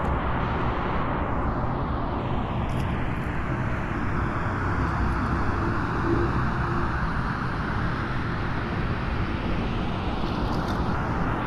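Car traffic on a rain-wet road: a steady hiss of tyres on water over a low rumble, swelling and easing as vehicles pass.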